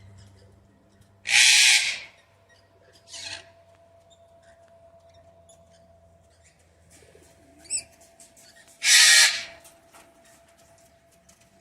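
Wild parrots screeching: two loud, harsh screeches, one about a second in and one near nine seconds, with a fainter screech in between and a short call just before the second.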